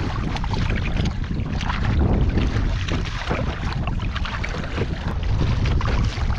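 Double-bladed paddle strokes dipping and splashing beside a sit-on-top kayak, over a steady low rumble of wind on the microphone.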